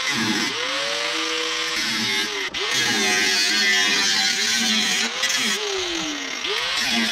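A power tool motor starts abruptly and runs loudly with a strong hiss. Its pitch dips and recovers several times, with a brief drop about two and a half seconds in.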